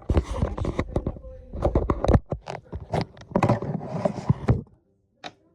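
Handling noise of supplies being moved close to the microphone: a fast, irregular run of scrapes, rustles and clicks that stops about four and a half seconds in.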